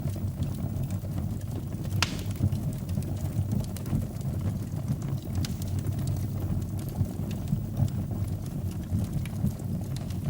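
Wood fire burning in a fireplace: a steady low rumble of the flames with scattered sharp crackles and pops, one louder pop about two seconds in.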